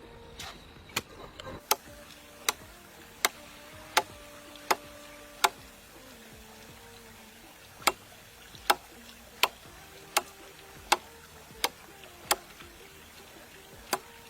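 Sharp knocks struck at an even pace, about one every three-quarters of a second, in two runs with a pause between, over faint background music.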